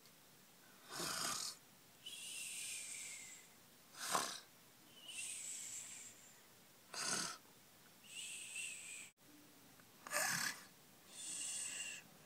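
Cartoon-style snoring voiced by a person for a sleeping doll: four breaths about three seconds apart, each a short snorting inhale followed by a longer whistling exhale that falls in pitch.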